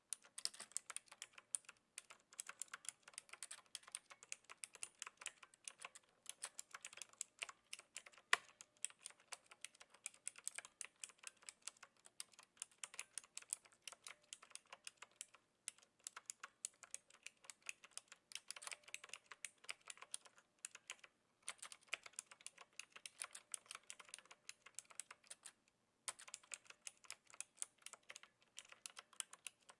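Steady typing on a Knewkey Rymek typewriter-style mechanical keyboard with clicky blue switches: a dense run of light key clicks, broken by a couple of short pauses.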